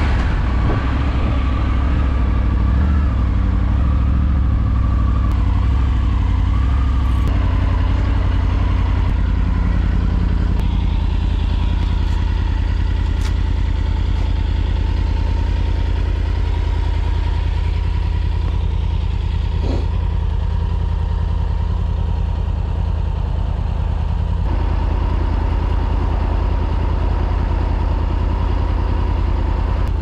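Triumph Tiger three-cylinder motorcycle engine running steadily under way, its note shifting slightly a few times.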